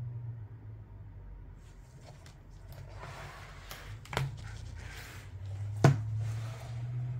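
A large hardcover sound book being closed and turned over on a wooden table by a gloved hand: rustling of hand and cover, a knock about four seconds in and a louder knock about two seconds later as the book is set down. A low steady hum runs underneath.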